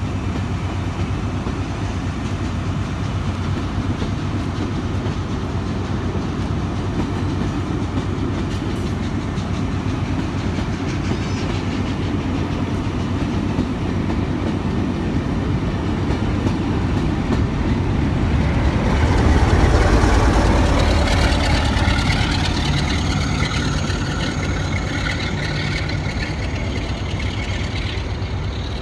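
Railway coaches rolling past steadily, wheels clattering over the rails. Near two-thirds of the way through, the diesel locomotive on the rear of the train draws level and its engine grows louder, then fades as it moves off.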